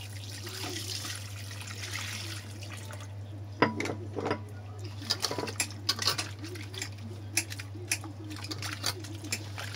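Water poured into a bowl of mango pits and sugar, an even hiss for about three seconds. Then a sharp knock, and hands squishing and sloshing the pits in the liquid with quick wet clicks.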